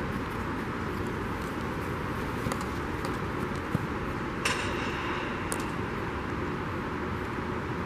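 Steady rushing background noise, with a few light taps of a field hockey stick on the ball and one sharper click with a short ringing tail about four and a half seconds in.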